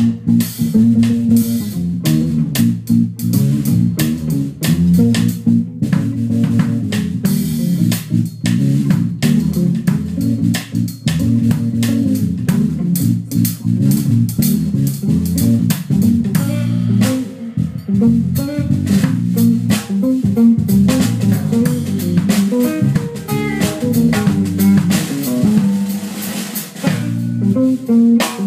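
A live jazz trio of guitar, electric bass and drum kit plays a New Orleans-style blues tune. A walking bass line and guitar sit under busy drumming with frequent cymbal strikes.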